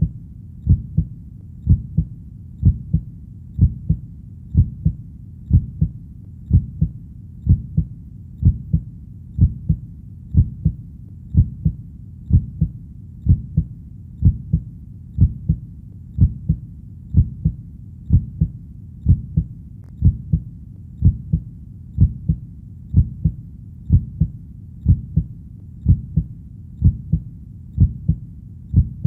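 Heartbeat: a steady, deep double thump (lub-dub), about once a second.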